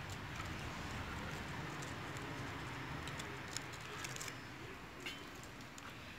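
Kittens scuffling and playing on a dirt floor: faint, scattered scratches and taps over a steady low background rumble.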